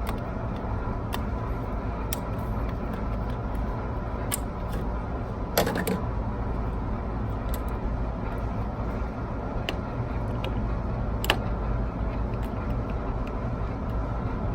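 Steady low machinery hum with a few sharp clicks of tools and parts being handled, the loudest a short clatter about six seconds in.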